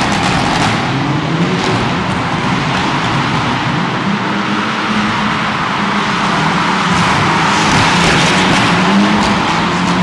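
A Mitsubishi Lancer Evolution X rally car's turbocharged four-cylinder engine runs hard while the car drifts, with a steady hiss of tyres sliding over the arena floor.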